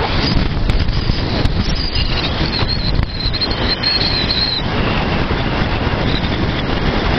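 Wind rushing over the microphone with the engine of a Honda CG 125 Fan motorcycle running underneath at a steady cruise. The single-cylinder four-stroke breathes through a Guela aftermarket exhaust with its baffle removed.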